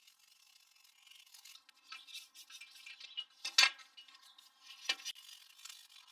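A cleaning brush scrubbing over computer parts in short, uneven strokes, with a sharp knock about three and a half seconds in and a smaller one near five seconds.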